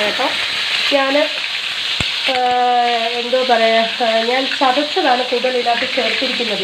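Chopped garlic sizzling in hot oil in an iron kadai, a steady crackling hiss, with a woman's voice talking over it.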